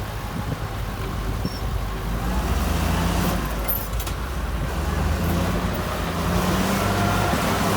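Heavy diesel engine of earthmoving machinery running and revving up under load, growing louder about two seconds in and again near the end, with a brief metallic rattle in the middle.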